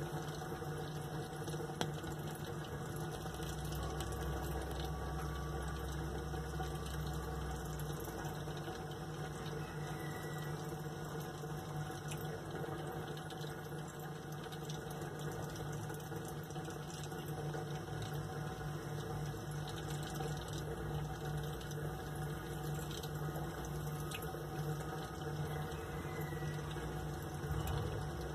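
Steady flowing water with a low constant hum, typical of an aquarium pump circulating the tank water.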